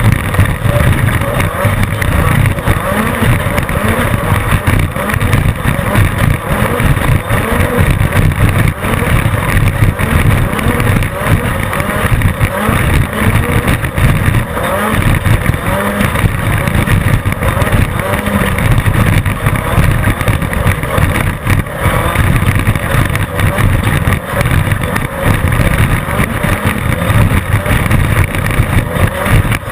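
Class 10 off-road desert race car's engine running continuously at race pace, loud, with a constantly jumping level and no let-up.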